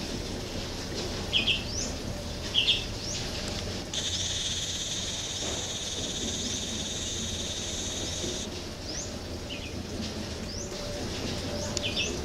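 Wild birds chirping outdoors in the morning, a few short, quick rising chirps. About four seconds in, a steady high buzz starts; it lasts about four seconds and stops abruptly.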